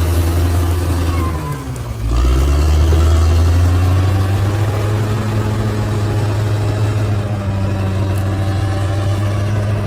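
Large bulldozer's diesel engine running steadily. About a second and a half in, its pitch and loudness dip briefly, then it picks back up to a steady, louder note.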